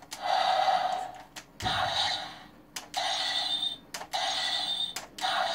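Electronic sound effects from a Legacy Golden Power Staff toy, played through its small built-in speaker. Four or five short effects about a second each, each set off by a sharp click of a button, with a low thump of handling about a second and a half in.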